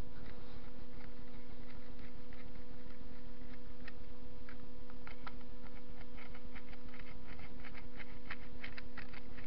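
Small irregular metal clicks and ticks of a screwdriver turning a screw in the cast-iron cross-slide of a TV-16 lathe, growing more frequent in the second half, over a steady hum.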